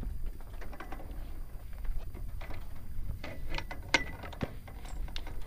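Irregular soft knocks and thumps of hands, knees and bare feet on a sailboat's textured anti-skid deck as a person crawls along it, with one sharper knock about four seconds in, over a low rumble.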